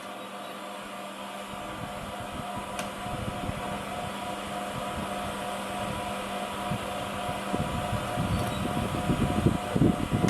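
A steady mechanical hum, with an irregular low rumble building through it and heaviest in the last few seconds.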